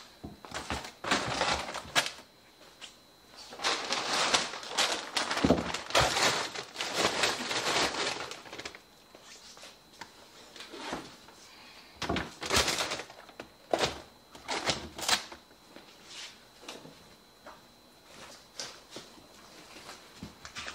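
Frozen food packages and plastic totes being packed into a chest freezer: irregular knocks and thuds with stretches of plastic wrapping rustling.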